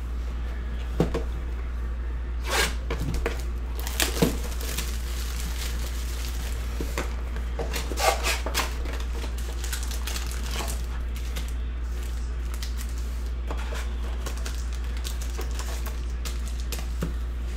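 Trading-card box and foil card packs being handled: scattered rustles, crinkles and light taps as the box is opened and its packs pulled out and stacked, over a steady low hum. The handling noises are busiest in the first few seconds and again about eight seconds in.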